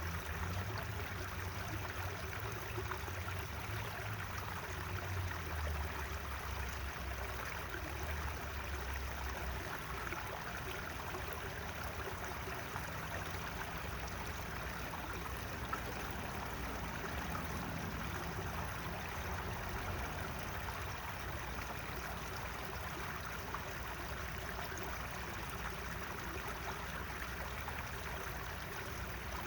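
Natural running water of a stream, flowing steadily, with a low rumble underneath for the first ten seconds or so.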